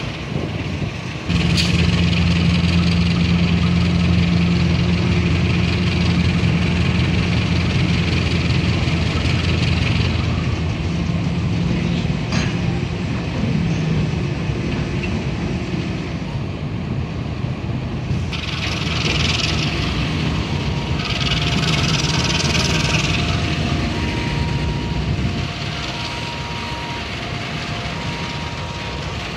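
A CC 201 (GE U18C) diesel-electric locomotive's engine working as it shunts a rake of covered clinker wagons at walking pace. A steady low engine drone steps up suddenly about a second in and eases off later, under the rumble of the wagons rolling on the rails. In the second half come short bursts of hiss, then an alternating two-tone beeping from the level-crossing warning signal.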